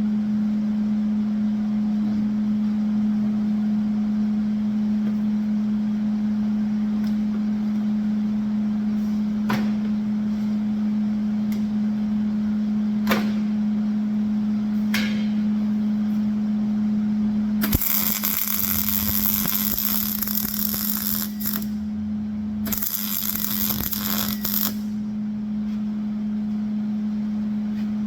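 Arc welding on the steel flatbed frame: two spells of crackling sizzle, about four seconds and then about two seconds long, in the latter part, with a few sharp clicks earlier, over a steady low hum.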